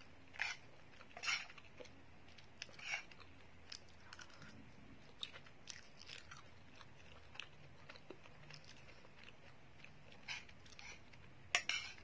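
Faint sounds of someone eating Maggi instant noodles: chewing, with a few short louder mouth sounds and light clicks scattered through.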